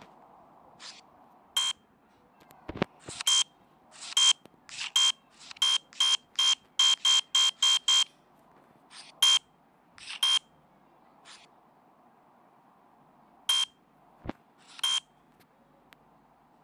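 A series of short, sharp electronic beeps at one high pitch, coming about four a second in the middle stretch, then only now and then.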